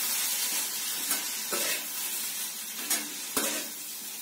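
Poha frying in a steel pan on a gas stove: a steady sizzle as it is stirred with a steel spatula, with a few short scrapes and taps of the spatula against the pan.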